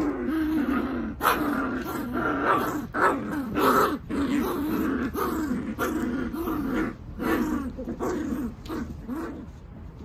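45-day-old Welsh terrier puppies growling in play while mouthing and tugging plush toys: a long run of short, high-pitched growls, one after another, that dies away shortly before the end.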